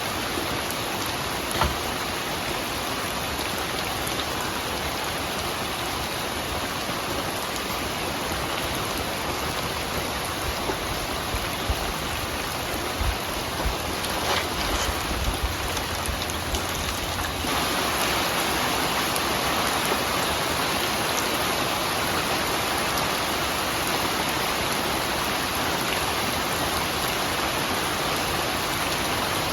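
Steady rain falling, a dense even hiss with scattered sharper drop taps and a few low thuds. It gets louder and heavier a little past halfway through.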